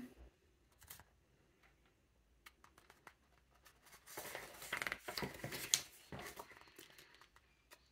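Paper pages of a glossy booklet rustling as they are handled and turned, starting about four seconds in, after a few faint ticks.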